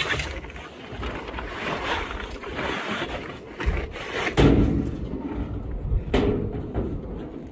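Irregular scraping and rubbing with knocks, and two heavier thumps about four and a half and six seconds in.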